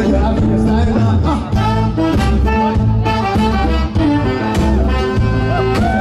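Live band playing loud, upbeat amplified music with a heavy, pulsing bass beat.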